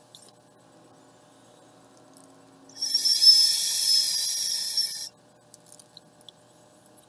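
Handheld butane torch lighter burning: a steady jet hiss with a whistling tone, lasting a little over two seconds, starting about three seconds in and cutting off suddenly.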